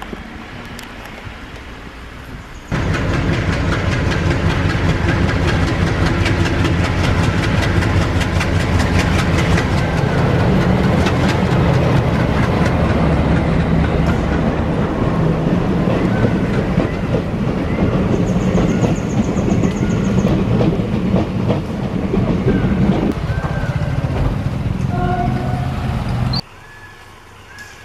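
Passenger train rolling past close by: a loud, steady rumble and clickety-clack of coach wheels on the rails. It starts suddenly about three seconds in and cuts off shortly before the end.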